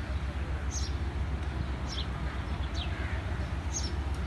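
Small bird giving short, high chirps that drop sharply in pitch, roughly one a second, over a steady low rumble.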